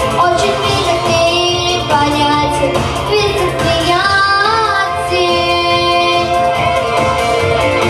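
A young female voice singing a song over an instrumental backing track, with long held notes, one of them wavering about halfway through.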